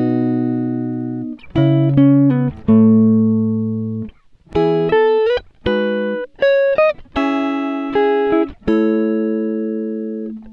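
Background music: a solo plucked guitar playing a slow melody of single notes, each ringing out and fading, with a few notes bending up in pitch.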